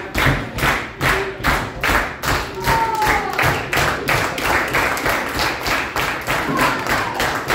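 Wrestling crowd clapping in unison in a quick, even rhythm, with a low thud on each beat. A short high falling call cuts over it about three seconds in.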